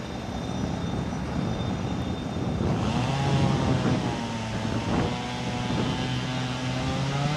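TU4 narrow-gauge diesel locomotive's engine idling, then revving up about three seconds in and running on at higher, steady revs. A short knock comes about two seconds after the rev-up.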